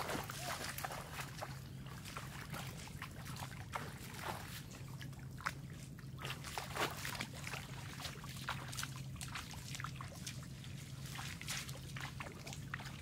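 Shallow water trickling and splashing in short sharp strokes as a person wades and a cast net is worked over fish in ankle-deep floodwater, with a steady low hum underneath.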